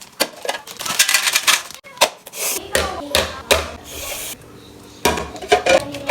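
Snack packets and plastic containers being handled and set down: irregular crinkling, rustling and light clattering, with a brief lull about two-thirds of the way through.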